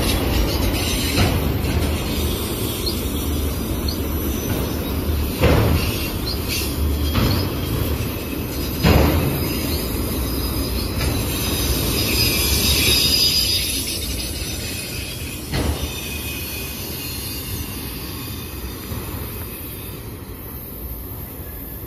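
Autorack freight cars rolling past, wheels rumbling and clattering on the rails, with three sharp knocks and a stretch of high wheel squeal near the middle. The sound fades over the last few seconds as the end of the train moves away.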